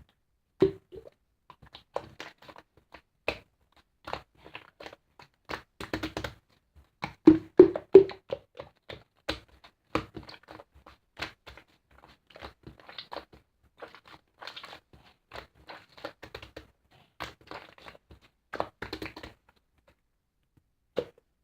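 Slime being squeezed, stretched and poked by hand, giving irregular small clicks, pops and crunchy crackles, with a louder cluster of pops about seven to eight seconds in.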